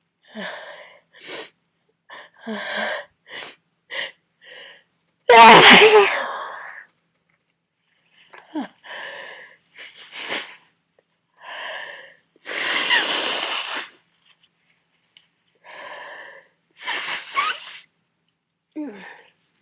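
A run of massive sneezes from a person with a heavy cold, the loudest about five seconds in and another near the middle, with short catching breaths between them.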